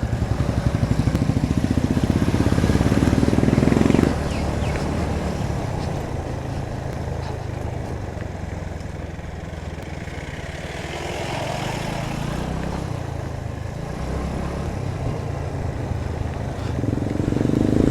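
Royal Enfield Bullet's single-cylinder engine running under a rider, with an even thumping beat for the first four seconds. The engine then drops to a quieter, softer run as the throttle eases, and builds again near the end.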